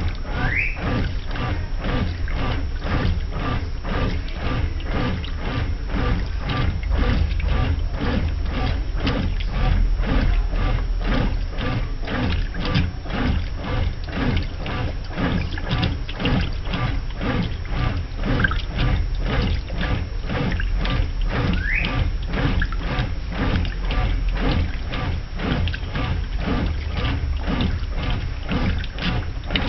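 Brastemp washing machine churning a load in rinse water: regular sloshing strokes about twice a second over a low motor rumble, with a short rising squeak twice.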